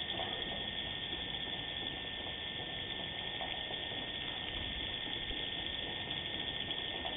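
Steady hiss from a security camera's built-in microphone, with a thin, steady high electronic whine; no lure call or other clear sound stands out.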